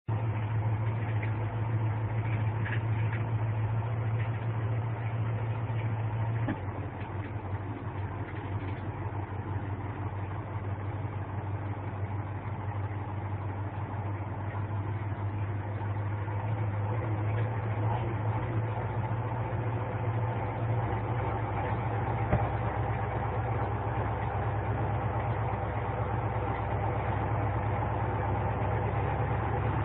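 Heavy truck's engine running steadily as the truck drives, heard from inside the cab as a low hum. It eases slightly about six seconds in, and there is a single click near the end.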